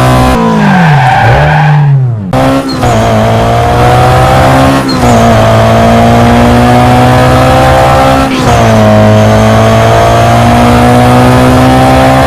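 Drift car's engine running at high revs. About half a second in the revs drop away and swing back up, and the sound cuts out briefly just after two seconds. After that the pitch climbs slowly, with short breaks and a drop in revs about two and a half, five and eight and a half seconds in, like upshifts under power.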